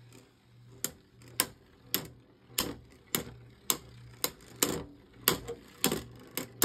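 Two plastic-generation Beyblades, Roller Defense and Dranzer V2, spinning in a clear plastic stadium and clacking against each other in sharp knocks about twice a second as they circle during a battle.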